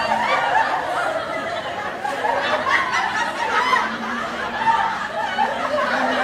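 Several people laughing, with voices overlapping.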